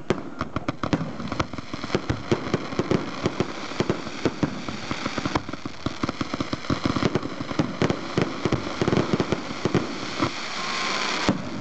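Professional fireworks display firing a dense barrage: rapid, overlapping bangs and crackling from aerial shells. Near the end a hissing noise builds, then cuts off suddenly.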